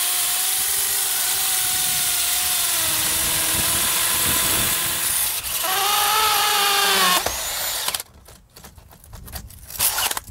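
Power drill with a hole saw boring the line-set hole for a mini-split: a steady motor whine under load that breaks off about five seconds in, runs again briefly at a slightly higher pitch, and stops near eight seconds. A few quieter knocks follow.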